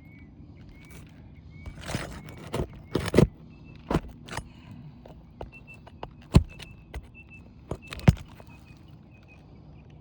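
Sharp, separate knocks and clicks of a metal roof-snake shingle removal bar working against roofing nails and brittle asphalt shingles as the nails are pried out. The knocks come about once a second, with the loudest a little after three seconds in, at about six seconds and at about eight seconds.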